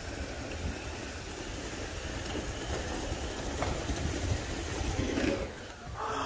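Continuous rumbling rush of riders sliding down a wooden miners' slide in a salt mine. It grows slowly louder and dips briefly just before the end.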